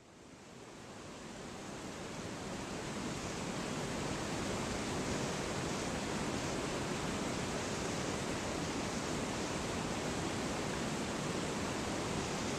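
A river's whitewater rapids rushing over rocks: a steady, even roar of water that fades in over the first few seconds.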